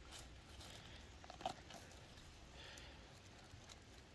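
Faint rustling of leaf litter and moss as a hand works a cèpe de Bordeaux out of the ground, with one short sharp click about one and a half seconds in.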